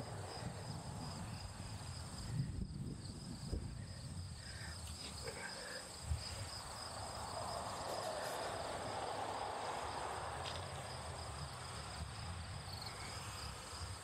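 Insects chirping steadily in the background, with a low rumble, a few soft knocks and a stretch of rustling about halfway through.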